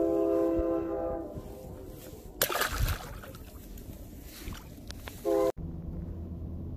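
A horn sounds one long steady chord that fades out about a second and a half in, with a sharp knock about two and a half seconds in. A brief second blast of the same chord comes near the end and cuts off abruptly.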